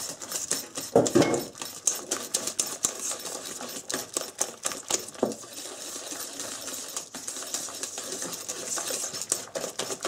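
Coil whisk beating a runny egg, oil and milk batter in a stainless steel bowl: rapid, irregular clicking and scraping of the wire against the metal, several strikes a second, with one louder scrape about a second in.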